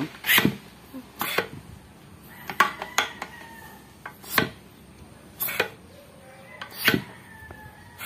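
Sharp metal knocks and clinks, about nine at irregular intervals, from a truck gearshift servo's piston shaft being pushed and worked into its cylinder housing, a stiff fit.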